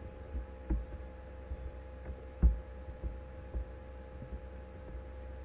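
Steady electrical hum with a low rumble underneath, broken by a few soft low thumps, the loudest about two and a half seconds in.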